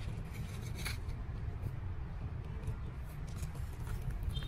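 Soft scraping and light clicks of soil and a small metal trowel being handled in a plastic plant pot, over a steady low rumble. A short high tone sounds near the end.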